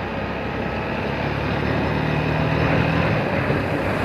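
Motorcycle riding along at road speed: a steady engine note under the rush of wind across the microphone.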